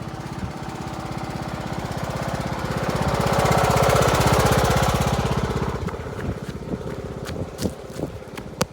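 Riding lawn mower engine running with a steady, rapid firing pulse. It grows louder to a peak about four seconds in, then fades again.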